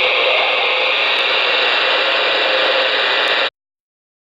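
Steady static hiss from the Ranger RCI-2970N4 ten-meter radio's receiver, tuned to 27.185 MHz (CB channel 19) with its squelch open. It cuts off suddenly about three and a half seconds in.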